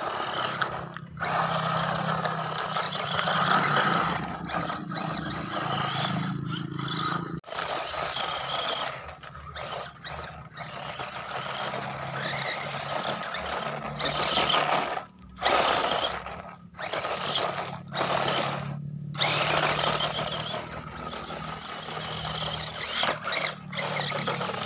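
Brushed electric motor and gearbox of a 1/18 PXtoys 9303 RC 4x4 truck whining under throttle, with its tyres scrabbling over dirt and gravel. The sound cuts out suddenly several times as the throttle is let off, then picks up again.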